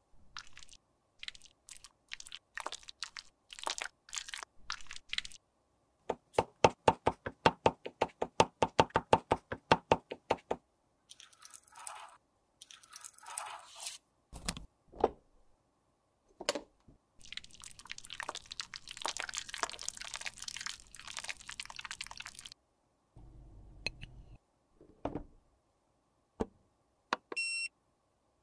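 Close-up crinkling and crunching of a clear plastic bag of crushed eyeshadow powder being squeezed and rubbed, including several seconds of fast, even strokes. Scissors snip the tip of a plastic piping bag about halfway through, then a long stretch of plastic rustling follows, with a short beep near the end.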